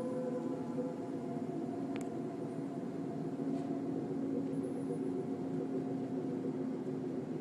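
Unexplained low, steady drone made of several held tones, one of the 'strange sounds' of the kind heard from the sky; the higher tones fade over the first second or so while the lower ones carry on. A single sharp click about two seconds in.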